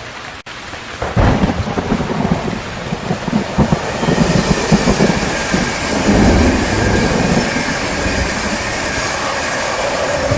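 Thunderstorm: steady heavy rain with thunder rumbling, which swells in about a second in after a brief drop-out.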